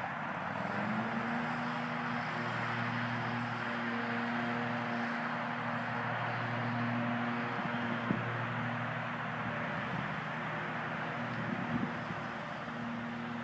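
WLToys V911 micro RC helicopter flying overhead: a steady rotor and motor hum that sets in about half a second in, under a steady hiss of light wind.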